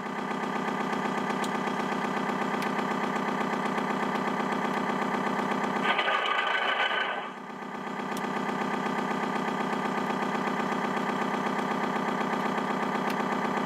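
A sound module in an RC model tugboat plays a steady diesel engine idle through a small speaker. About six seconds in comes a louder, rougher surge lasting roughly a second, and it starts again just before the end, repeating every seven to eight seconds like a looped sample.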